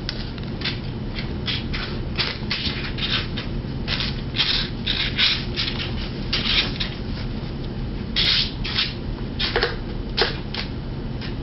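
Kitten playing close to the microphone, making irregular scratchy scuffs and clicks a few times a second, over a steady low hum. A couple of sharper clicks come near the end.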